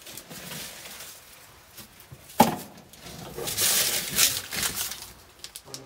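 Old car parts being handled and rummaged in a cardboard box: a single sharp knock about two and a half seconds in, then a stretch of rustling and scraping.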